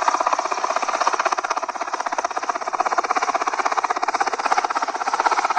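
Helicopter's main rotor chopping overhead in a rapid, even pulsing that holds steady throughout.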